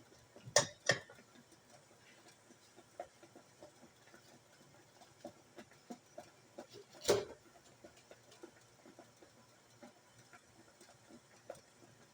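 Scattered small ticks and clicks, with two sharp knocks in quick succession about half a second in and a single louder knock about seven seconds in.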